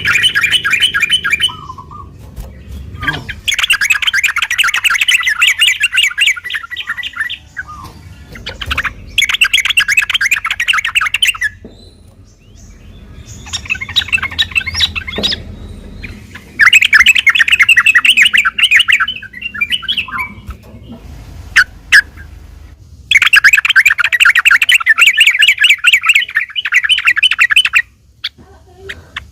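Yellow-vented bulbul (trucukan) singing in bursts of fast trilled phrases, each about two to four seconds long, with short pauses between.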